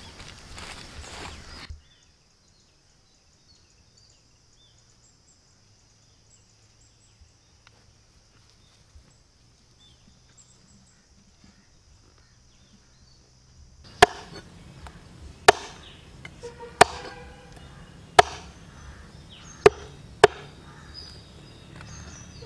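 A heavy cleaver chopping a dressed rooster on a wooden log chopping block: about six hard chops, roughly one every second and a half, starting about two-thirds of the way in after a long near-silent stretch.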